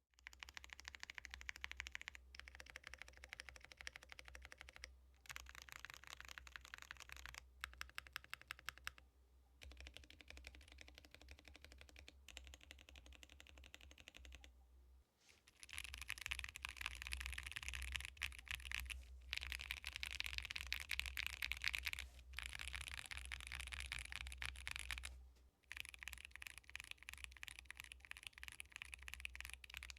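Mechanical keyboard typed on continuously with stock Akko Bittersweet tactile switches, in a gasket-mounted Neo Ergo case with a PP plate and EPBT keycaps: rapid keystroke clacks in runs with brief pauses. The typing gets louder about halfway through.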